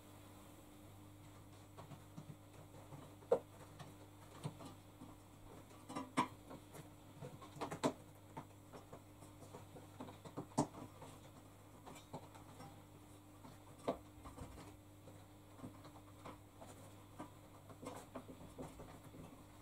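Rubber door seal of a front-loading washing machine being worked by hand onto the lip of the drum opening: soft rubbing and scraping with irregular small taps and clicks, several sharper ones through the middle, over a faint steady hum.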